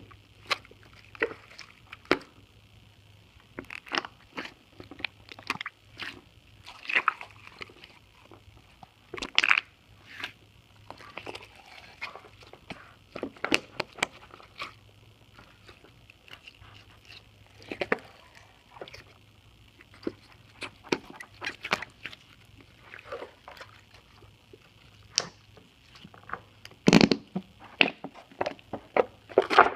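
Slime squeezed and pressed by hand, making irregular wet squelches, pops and fart-like noises, the loudest cluster near the end. A steady low hum from a poor microphone runs underneath.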